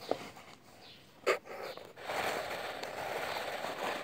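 Handling noise: a single knock about a second in, then a couple of seconds of steady rustling as a paper notebook is held and moved.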